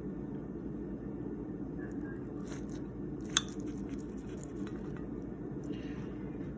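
A few light clinks of a knife or utensil against a plate while slicing open a mini bread pudding. The sharpest click comes about three seconds in, over a steady low background hum.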